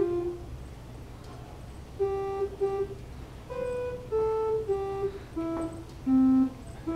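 Electronic organ playing a simple melody one held note at a time, each note steady and cut off cleanly rather than dying away, in a halting rhythm with a pause of over a second near the start: a tune picked out by ear without sheet music.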